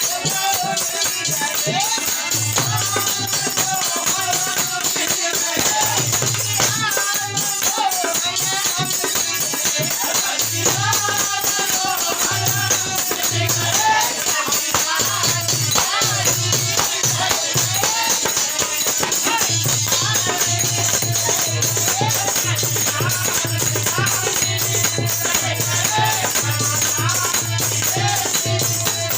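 Hindi devotional bhajan: a male singer's voice over a hand drum beat and steady jingling percussion. The drum plays an even, repeating pulse through the second half.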